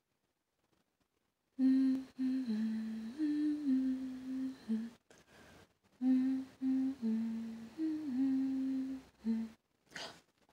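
A woman humming a short melody in two matching phrases, the second repeating the first. A brief sharp noise follows near the end.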